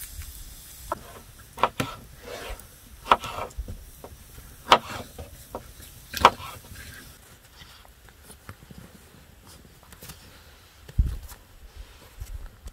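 Garlic being peeled and cut with a small knife on a wooden cutting board: rustling of the papery skins and several sharp knocks of cloves and blade on the wood over the first six seconds, then quieter. A single low thump comes near the end.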